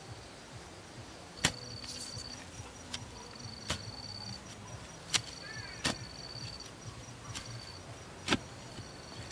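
A long bamboo-handled digging bar with a narrow metal blade being driven into soil to dig a planting hole: about five sharp strikes a second or two apart, the loudest a little over a second in and near the end. Insects trill in stretches behind it.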